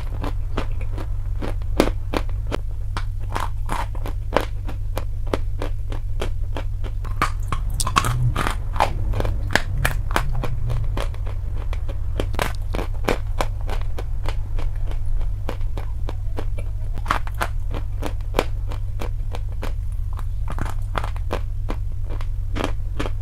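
Dry chalk crunching: a dense, irregular run of sharp cracks and crackles, over a steady low hum.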